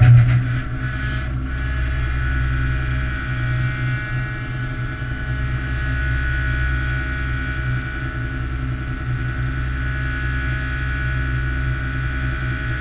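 Fishing boat's engine running steadily under the load of a net of fish being hoisted aboard: a deep drone with a higher whine over it. A few knocks come in the first second or so.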